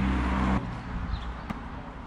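A motor vehicle's engine running close by, a steady low hum that stops abruptly about half a second in. A quieter outdoor background follows, with one sharp click near the end.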